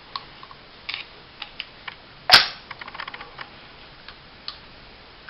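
Small metal pistol parts clicking together as a 1911-style 9mm's slide and frame are fitted, with one loud, sharp metallic clack a little over two seconds in.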